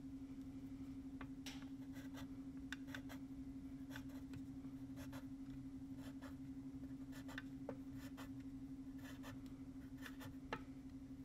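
Pencil scratching short marks on paper, a quick irregular series of strokes, several every second, over a steady faint low hum.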